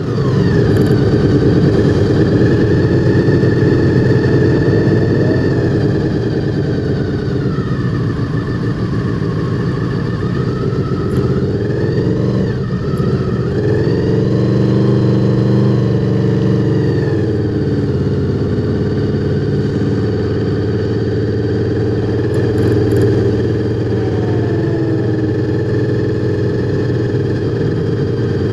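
Honda VFR800's V4 motorcycle engine running, its pitch rising and falling a few times, most noticeably around the middle.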